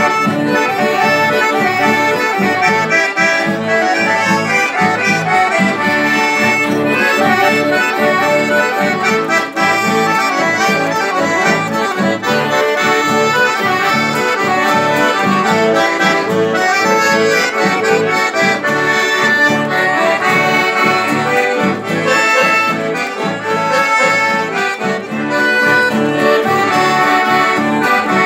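Accordion playing a tune without pause, with sustained melody notes over a steady pulse of bass notes.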